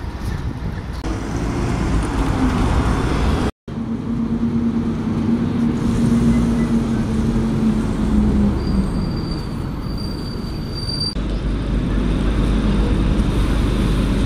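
Diesel buses running at a town-centre bus stop over steady street traffic, a low engine rumble throughout with a steady hum for a few seconds in the middle. The sound drops out briefly about three and a half seconds in, and a faint high whine comes near the middle.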